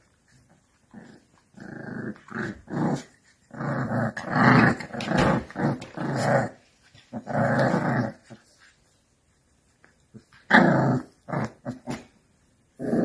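Alapaha Blue Blood Bulldog puppies growling at each other while play-fighting: a run of short, rough growls, a pause of about two seconds, then a few more growls near the end.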